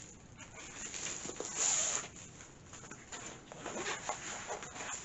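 Plastic packaging rustling and crinkling as a diamond painting kit is handled and opened, with a louder rustle a little under two seconds in.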